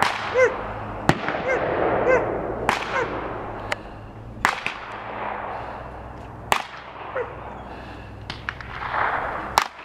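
Gunfire from a shooting range, sharp cracks every second or two, with a dog barking several times in the first three seconds and once more later.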